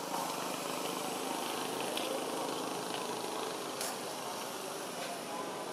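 Steady outdoor background noise with a faint engine-like hum, and a couple of faint clicks about two and four seconds in.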